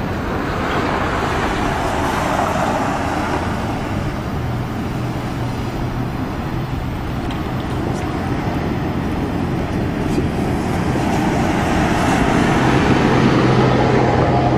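Steady road-vehicle noise: a low engine hum under a rush of traffic or tyre noise, growing a little louder near the end.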